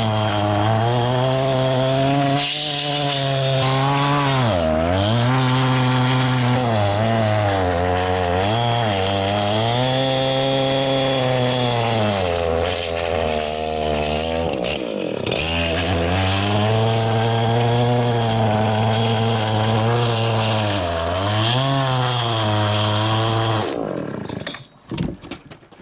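A large old Husqvarna chainsaw running at full throttle through a big log. Its engine pitch sags under the load several times and recovers, then the sound drops away near the end.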